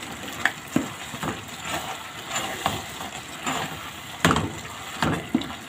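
Wooden spoon stirring creamed leafy greens in a steel pot, knocking and scraping irregularly against the pot, with one louder knock about four seconds in.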